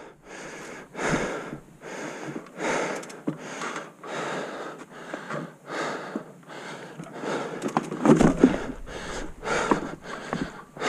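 A cyclist's heavy breathing, hard breaths in and out about once a second, out of breath from pedalling. A few low knocks come about eight seconds in.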